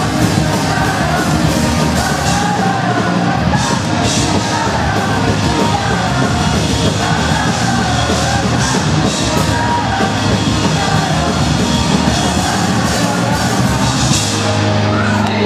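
Pop-punk band playing live, with distorted guitars, drums with crashing cymbals and shouted vocals, heard from within the crowd. Near the end the drumming stops and a held chord rings on as the song closes.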